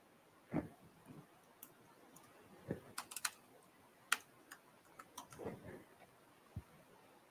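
Faint, scattered clicks of laptop keyboard keys as a command is recalled and edited, with a few soft, lower thumps among them.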